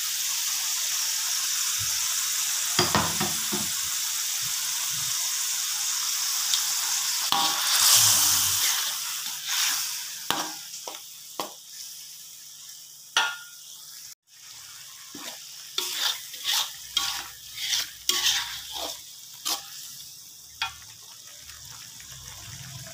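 Blended spice paste sizzling in hot oil in a wok while a metal spoon stirs it, scraping and clinking against the pan. The sizzle is strongest in the first half and dies down, after which the spoon's scrapes stand out.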